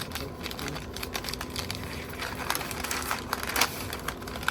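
Paper crinkling and rustling in quick, irregular crackles as it is folded tightly around a brisket.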